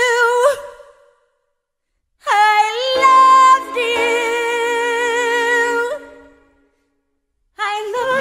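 A woman singing long held notes with vibrato and little or no accompaniment. The first note ends about half a second in. After a silent gap, a second long note over a low steady tone holds for about four seconds and fades out. Music starts again near the end.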